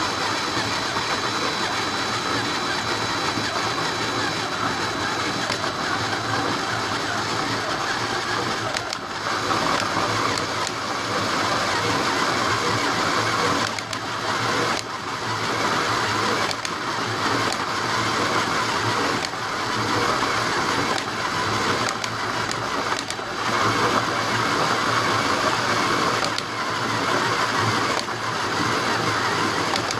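Power drill driving a large hole saw through the Hilux's steel front wing panel, the motor running steadily while the saw teeth grind through the metal. The grinding grows stronger about nine seconds in and eases off briefly every few seconds as the pressure on the cutter changes.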